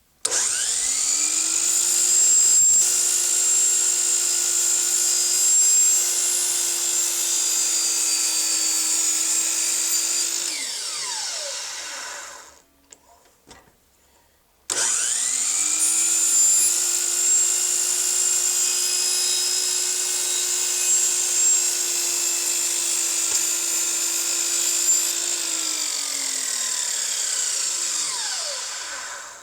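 Electric saw started twice, each time spinning up quickly, running steadily with a hum and a high motor whine for about ten seconds, then winding down over a couple of seconds. The blade is trimming a hair off a 45-degree mitre cut at a time.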